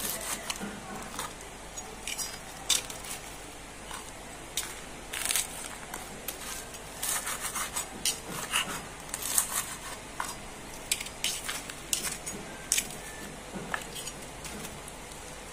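Table knife and fork cutting fried cireng on a wooden cutting board: irregular taps and short scrapes of the blade on the board, and near the end a fork clinking against a ceramic plate.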